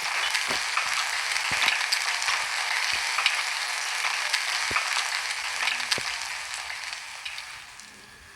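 Chicken sizzling and crackling in a frying pan: a steady hiss with frequent small pops, dying down near the end.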